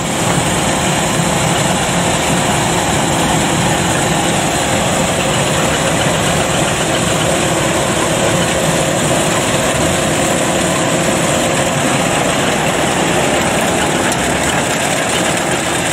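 Kubota DC93 combine harvester running steadily while cutting and threshing ripe rice: engine and threshing machinery at a constant, even level.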